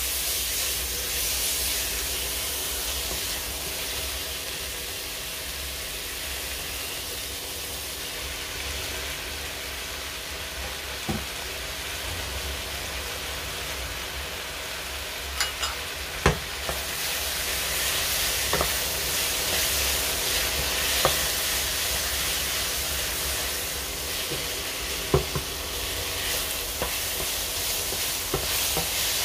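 Chicken, mushrooms and vegetables sizzling as they fry in a stone-coated nonstick wok while a wooden spatula stirs them, with scattered light knocks of the spatula against the pan. The sizzle grows louder about halfway through.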